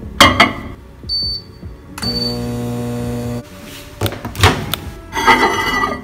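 Microwave oven being used. A sharp click comes first, then a couple of short high keypad beeps, then the oven runs with a steady low hum for about a second and a half. Knocks and clatter near the end come as a mug is set inside it.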